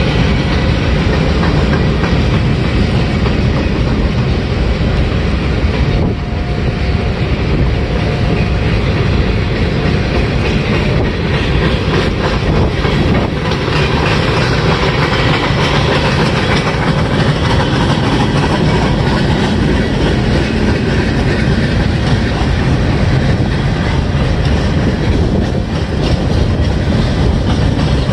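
Freight train cars (boxcars, centerbeam flatcars and a tank car) rolling past: a steady rumble of steel wheels on rail, with the clickety-clack of wheels over rail joints.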